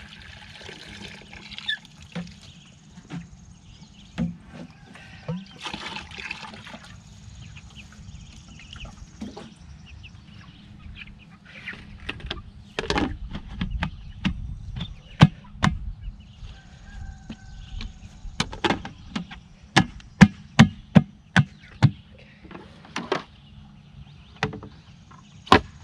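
Water pouring from a plastic watering can into a bucket for the first second or so, then a run of sharp plastic knocks and snaps as lids are pressed down onto plastic buckets, coming about two a second in the loudest stretch near the end.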